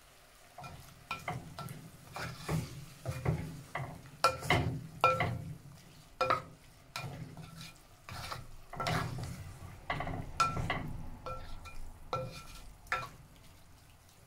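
Stirring clams and mussels in a thick sauce in a clay pot: irregular clinks and scrapes of the utensil and shells, about one or two a second, over a soft wet churning.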